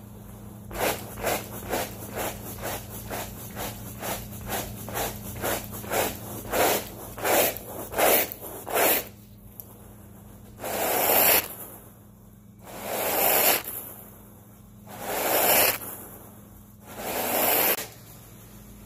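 A stiff carpet brush on a pole scrubbed rapidly back and forth through the carpet pile, about three short scraping strokes a second, then a wide carpet rake dragged through the pile in four long, louder strokes about two seconds apart.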